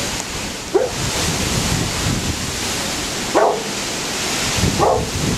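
A dog barking three times, short single barks spaced a second or more apart, over a steady rush of wind on the microphone and surf.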